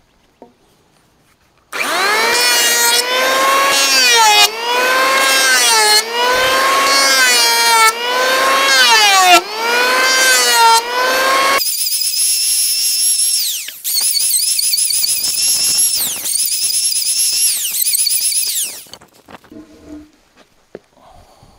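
Electric hand planer cutting a hardwood rail end, starting about two seconds in. Its motor whine sags in pitch and recovers with each pass, turns thin and high in the later passes, and stops a couple of seconds before the end.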